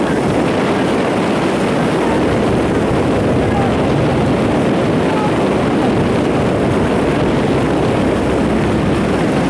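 Steady rumble of a motor launch's outboard engine under way, mixed with wind on the microphone and water noise.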